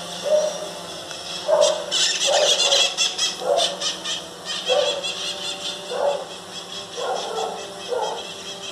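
Short animal calls repeated about once a second, over a crackling hiss that is strongest two to three seconds in.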